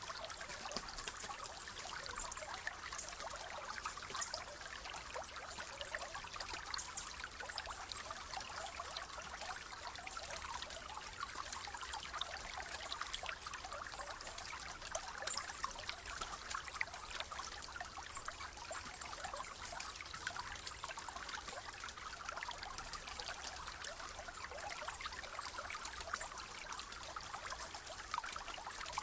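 A rainforest stream trickling and splashing over stones, a steady even wash of water with fine bubbling crackle, and faint high chirps now and then.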